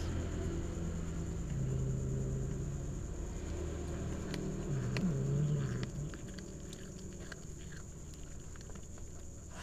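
A cat's low rumbling vocalisation, steady in pitch, with a brief dip about five seconds in; it fades out about six seconds in. Scattered wet clicks of cats chewing fish run through the second half.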